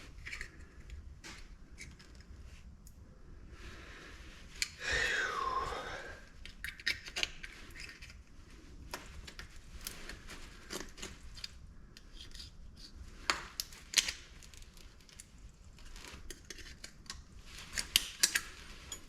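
Hand tools working at stubborn plastic on a light fixture to free a brass part: scattered clicks, scrapes and snips. About five seconds in there is a brief squeal that falls in pitch, and there are sharp snaps a little after the midpoint and near the end.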